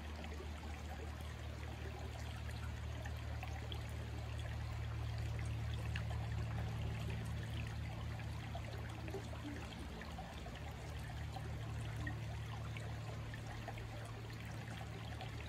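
Shallow creek water running and trickling steadily over stones, with a steady low hum underneath.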